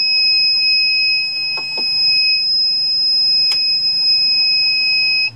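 Ender 3 Pro display buzzer sounding one continuous high-pitched alarm tone that cuts off suddenly at the end. It is the printer's alarm for a 'heating failed' error from the newly fitted SKR Mini E3 v1.2 board, which is not heating. A low hum runs underneath.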